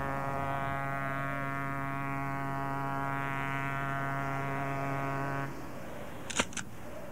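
Background music from a 1983 audio-drama cassette: one low brass note held steady for about five and a half seconds, then cut off, followed by two sharp clicks in quick succession.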